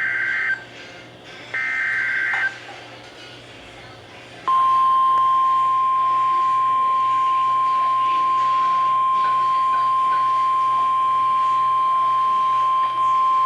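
Emergency Alert System SAME header: the end of one buzzy two-pitch digital data burst, then another about a second long. About two seconds later comes the steady single-pitch EAS attention tone, lasting about nine seconds. Together they signal the start of a new warning, here a severe thunderstorm warning.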